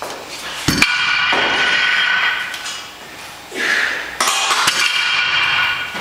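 Iron weight plates on a Rolling Thunder grip handle's loading pin clanking together, twice, about a second in and again about four seconds in, each clank ringing on for more than a second.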